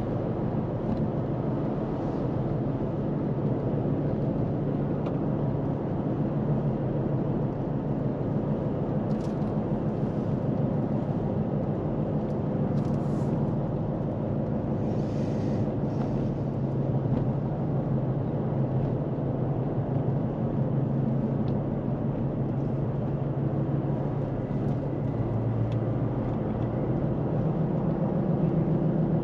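Vehicle engine and road noise while driving: a steady low hum, with the engine note rising slightly near the end.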